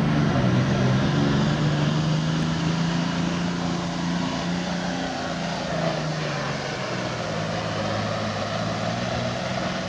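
Heavy diesel super stock pulling tractor engine running steadily, its note dropping slightly about a second in.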